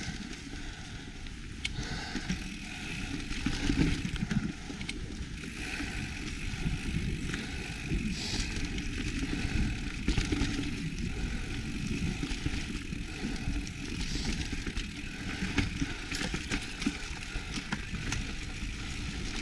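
Mountain bike riding down a dirt trail: a steady low rumble of tyres on the ground with scattered clicks and rattles from the bike. A faint steady whine joins about five seconds in.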